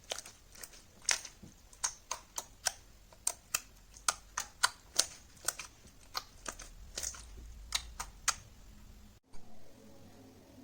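Slime being squeezed and pressed by hand, making sharp, irregular clicking pops about two to three a second; they stop abruptly about nine seconds in.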